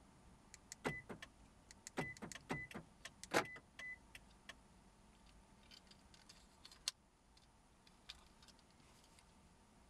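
Plastic clicks and snaps from a broken car key fob being handled and its buttons pressed. Several of the louder clicks in the first few seconds come with a short high beep, and lighter, sparser clicking follows.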